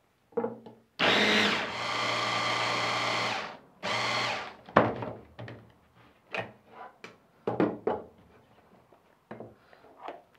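Smeg immersion blender on its chopper attachment mincing onion chunks. The motor runs steadily for about two and a half seconds, starting about a second in, then gives one short second pulse. After that come scattered knocks and clatter as the chopper is taken apart and the minced onion is tipped into a bowl.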